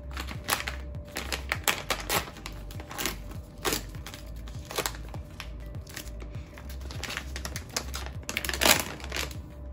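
Plastic candy wrapper crinkling and crackling as a pack of chili candies is opened and handled, a run of sharp crackles, the loudest near the end. Background music plays underneath.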